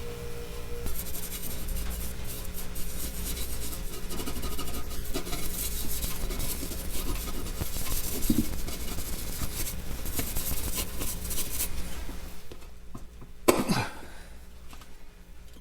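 Chrome cleaner being rubbed lightly by hand over a chrome-plated motorcycle primary cover, giving a scratchy scrubbing hiss of quick back-and-forth strokes. A short squeak falling in pitch comes near the end.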